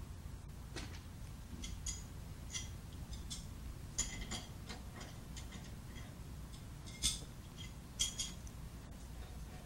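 Stainless-steel parts of an inline high-shear mixer's mixing head clinking and clicking as they are handled during disassembly, with adjustable wrenches knocking against the nut on the rotor shaft. The sharpest clinks come about four, seven and eight seconds in.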